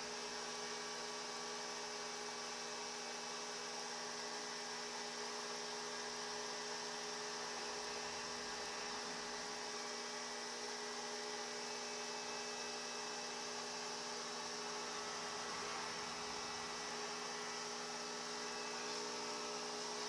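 Steady electrical hum from a Xantrex 6000 W hybrid inverter/charger running under load in an off-grid solar system, with a steady hiss above it. The load includes a running air conditioner.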